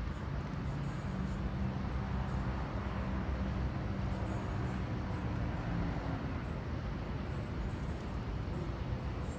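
City traffic noise, a steady low rumble, with a vehicle engine's low hum coming up about a second in and fading out around six seconds in.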